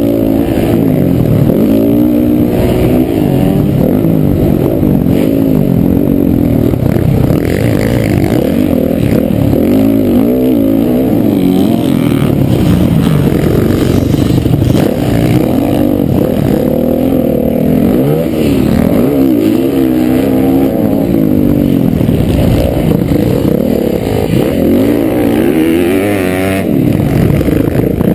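Honda CRF450R four-stroke motocross bike engine, heard close up from the rider's own bike, revving up and down continuously as it accelerates, shifts and backs off around the track.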